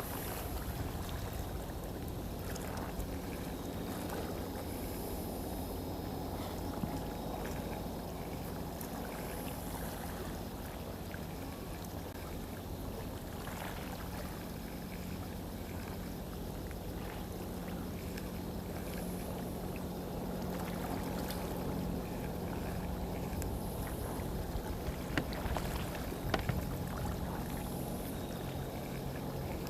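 Steady low hum of a boat engine running, over a wash of water noise. A few light clicks come near the end.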